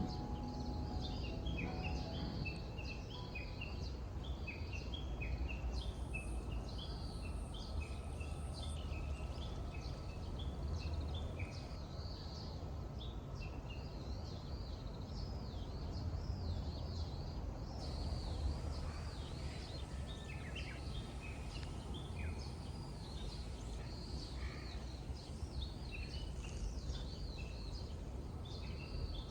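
Many small birds chirping and calling in quick, overlapping short notes over a steady low rumble.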